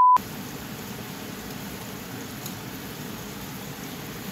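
A short high single-pitch beep cuts off at the very start, followed by a steady, even hiss with no rhythm or distinct events.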